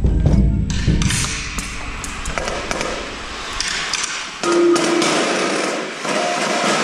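Indoor drumline and front ensemble playing: a deep bass-drum rumble fades out in the first second, then a shimmering wash of cymbals and small metal percussion with scattered taps, and a held pitched tone enters about four and a half seconds in.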